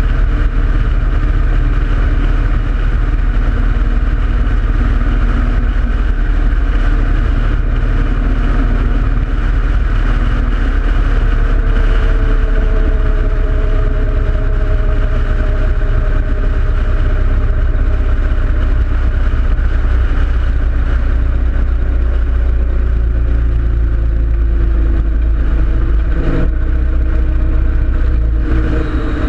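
V-twin engine of a 2013 Harley-Davidson Road King Classic running steadily under way, heard close up from a handlebar-mounted camera. Its note drops slowly through the second half as the bike eases off.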